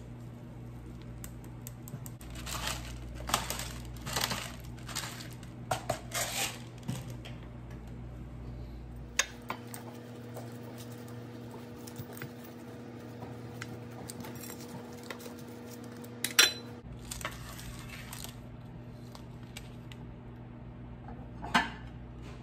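Metal kitchen utensils working a freshly baked tart on a metal baking sheet. A run of short scrapes comes first, then a pizza-cutter wheel and a spatula scrape and clink against the pan and plates, with sharp clinks about nine seconds in, about sixteen seconds in, and near the end.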